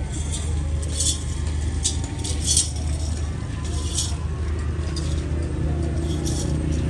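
A steady low motor hum with short metallic clinks and jingles over it, several in the first four seconds and another near the end.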